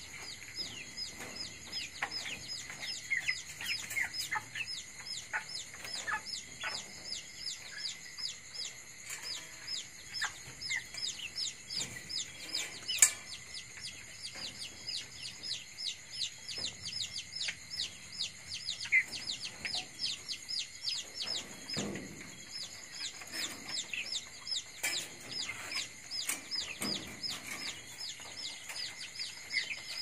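Three-week-old chickens in a cage peeping over and over, each peep a short high note falling in pitch, several a second, with the odd lower cluck. A steady high ringing runs underneath, and there is one sharp click about halfway through.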